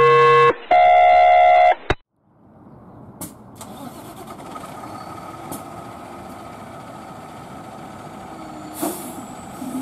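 Two loud electronic alert tones, one after the other, then after a brief gap a fire engine's diesel engine running and growing steadily louder as the rig pulls out of the station. A short hiss comes about nine seconds in.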